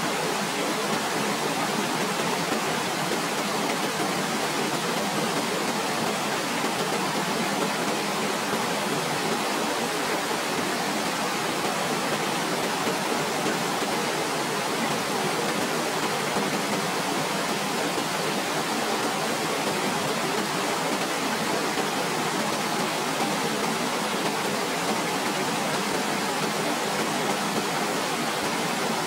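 Waterfall: a steady, unchanging rush of falling water.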